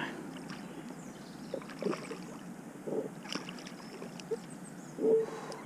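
A hooked rainbow trout splashing and swirling at the surface as it is played in close to the bank: a few scattered short splashes over a steady background of wind and water.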